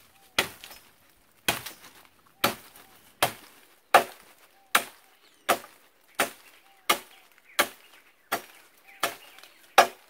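Machete chopping into a wooden pole to carve a point on its end: thirteen sharp blade strikes into the wood at a steady pace, about one every three-quarters of a second.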